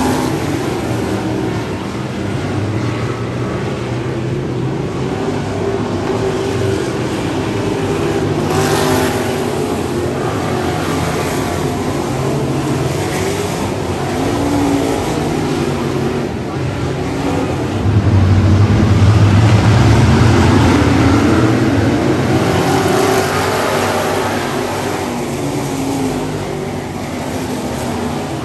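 A field of dirt-track race cars running laps around the oval, heard from the grandstand as a steady mix of engines. It swells louder as the pack passes close about eighteen seconds in, then eases off over the next few seconds.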